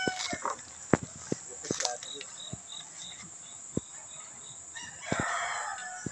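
A rooster crowing, its crow ending just after the start. Then come scattered sharp knocks and a quick, even run of high chirps through the middle.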